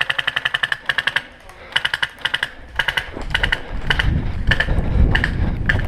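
Airsoft guns firing fully automatic, a long burst of rapid cracks and then a string of short bursts. A low rumble builds underneath about halfway through.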